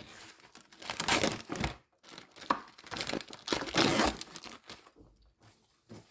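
Plastic film being peeled and torn off a clear plastic meat tray: crinkling and tearing plastic in irregular bursts, loudest about a second in and again from two and a half to four and a half seconds, then quieter near the end.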